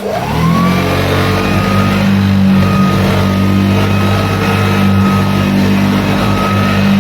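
Hoover Junior 1354A upright vacuum cleaner switched on: the motor spins up with a whine that rises over about the first second, then runs steadily with a strong low hum. This is a brand-new 1975 machine on its first run, and it runs well.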